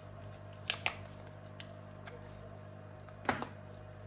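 A few sharp clicks and taps of small hard tools on a workbench: a quick pair just under a second in, a faint tick, then a louder double click about three seconds in, over a steady low electrical hum.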